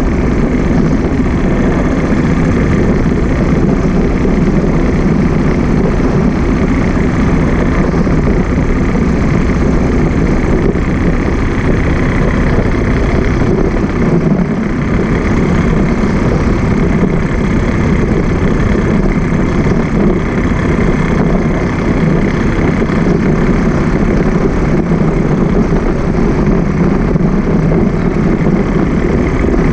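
Steady traffic and engine noise heard while riding along a busy multi-lane road, with vehicles passing close by.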